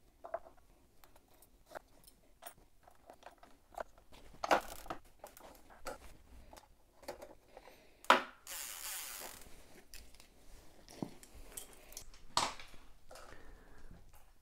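Scattered light metallic clicks and clinks of an 11-speed Shimano cassette being handled and slid onto a LeMond Revolution trainer's freehub, with a few sharper clicks and a short rustle just after one about eight seconds in.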